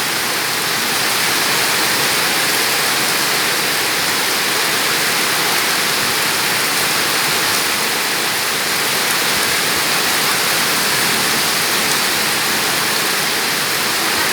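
Small waterfall: water falling and splashing in a steady, even rush with a bright hiss.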